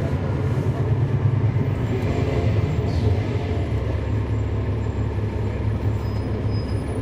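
Cummins ISL9 diesel engine of a 2011 NABI 416.15 transit bus running with a steady low drone, heard from inside the passenger cabin.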